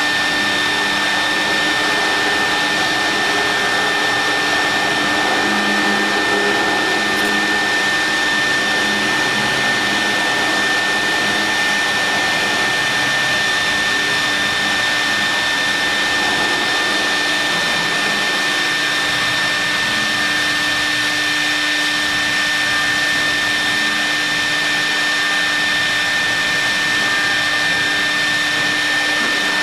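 CNC milling machine with a vacuum table running steadily while machining marble: a loud, even rush of noise with a constant high whine.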